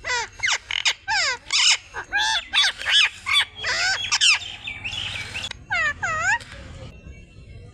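Indian ringneck parrot chattering in a rapid string of short, high-pitched calls that sweep up and down in pitch, falling quiet briefly near the end.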